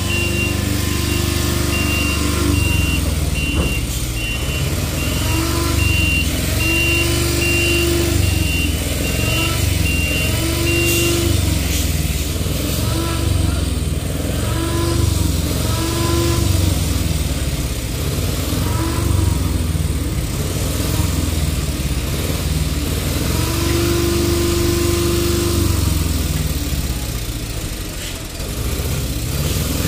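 Heavy truck's diesel engine running steadily under load as it hauls a train car on a multi-axle low-loader trailer. A high warning beeper sounds in even short beeps for about the first eleven seconds, and short whines come and go over the engine.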